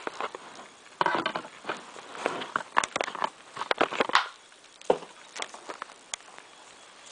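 Handling noise from a camera held against the body: rustling, scratching and bumping as the microphone rubs against hands or clothing. It is irregular and busiest for the first few seconds, then fainter, with one small click near the end.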